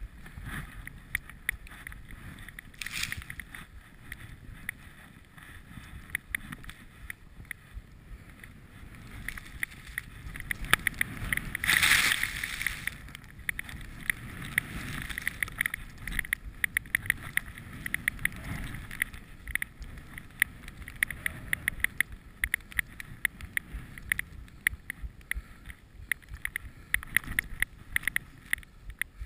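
Armada TST skis swishing and hissing through deep powder snow, with wind buffeting the body-worn camera's microphone and many small knocks and rustles. There is a louder rush of snow and wind about twelve seconds in.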